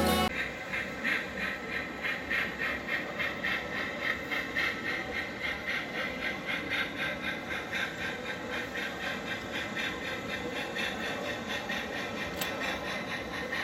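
Model trains running on a layout: a steady, even rhythm of soft hissing chuffs, several a second, like a small steam locomotive working.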